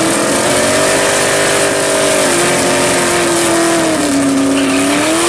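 Red first-generation Pontiac Firebird drag car doing a burnout. The engine is held at high revs over the hiss of the spinning rear tyres, its pitch sagging a little twice and climbing again near the end.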